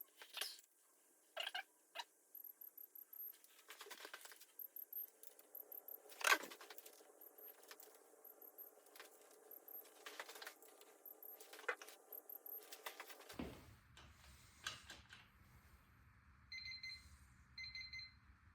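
Faint clicks and knocks of a torque wrench and socket tightening the engine block's jack screws to 90 inch-pounds, followed near the end by several short electronic beeps, the torque tool signalling that the target torque is reached. A low steady hum comes in about two-thirds of the way through.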